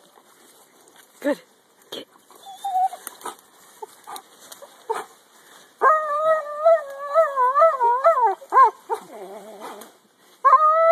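German Shepherd biting at a fallen tree branch: scattered cracks and snaps of wood under its teeth, then from about six seconds in a loud, high, wavering whine, broken off briefly and starting again near the end.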